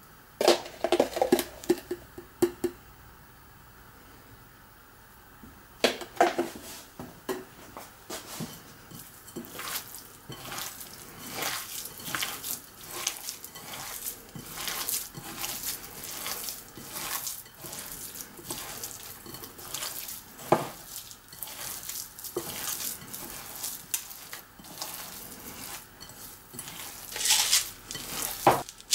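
Kitchen utensils clinking and clattering against bowls and dishes. There are a few sharp clinks at first, a short pause, then quick, near-continuous tapping and scraping.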